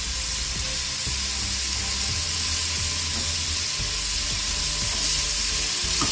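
Onion-tomato masala frying in oil in an aluminium pot, a steady sizzle, stirred with a metal spoon as boiled chickpeas are added to it.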